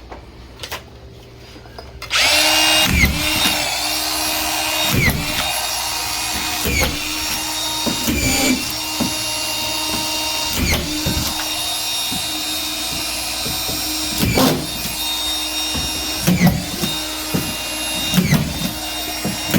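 Drywall screw gun starting about two seconds in and running continuously, its motor dragging down in pitch briefly every second or two as screws are driven through the plasterboard into the ceiling framing.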